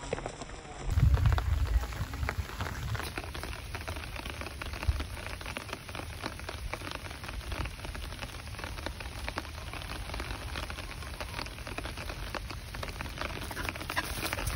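Steady rain falling, heard as an even hiss dotted with many small drop ticks. A low rumble rises over it from about one to three seconds in.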